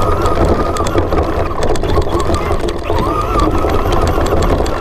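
Traxxas electric RC truck driving through snow, heard from a camera mounted on the truck: the motor and gear whine rises and falls with the throttle over a heavy low rumble, with many small clicks and knocks from the bouncing chassis.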